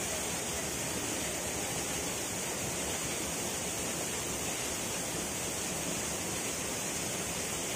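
Steady rushing of a waterfall: an even, unbroken noise of falling water.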